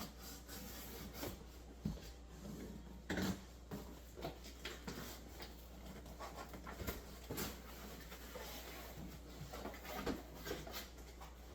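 Packaging rustling and crinkling by hand, with scattered light clicks and knocks, as a boxed sewing-machine accessory kit is opened and its contents handled.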